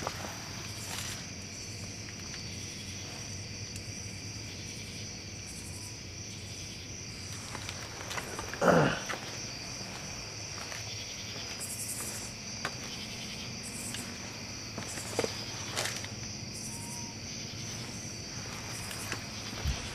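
Crickets and other night insects chirping steadily in high trills. One brief, louder noise comes near the middle, and there are a few faint clicks.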